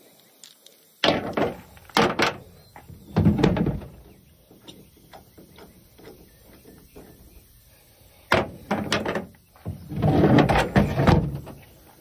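Heavy metal wheel hub and spindle clunking and knocking as it is handled and turned over, in two clusters: a few sharp knocks and a longer rattling clunk from about one to four seconds in, then more knocks and a longer clatter from about eight to eleven seconds in.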